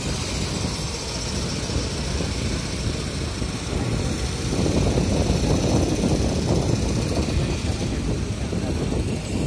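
City street traffic: cars and vans driving past close by, engines running and tyres on the road, a little louder about halfway through.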